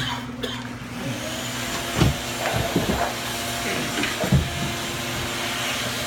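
A motor-driven blower running steadily with a whirring hiss and a faint steady hum, the kind of air-moving or vacuum equipment used to dry out and clean a water-damaged room. A few dull knocks sound over it.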